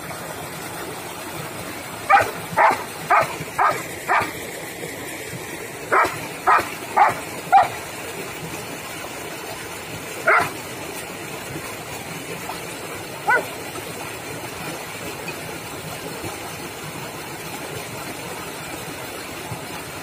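Long-coat German Shepherd barking in quick runs: five barks about half a second apart, then four more, then two single barks spaced out. Under them runs the steady rush of water pouring through a concrete irrigation channel.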